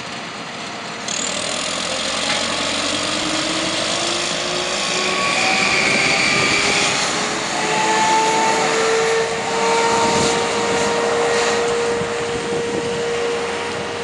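Elgin Whirlwind vacuum street sweeper passing with its engine and vacuum fan running. A loud rushing hiss comes in about a second in and holds, with engine tones that slowly rise in pitch.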